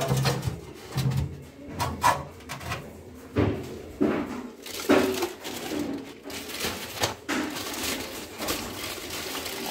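Pigeons cooing in short, repeated low calls, with a few sharp knocks and clicks in between.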